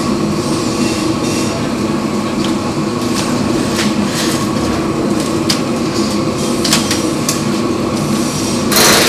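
Steady drone of the plank-steaming rig running, with scattered knocks and clatter from the wooden plank and tools being handled. A loud burst of hiss starts near the end.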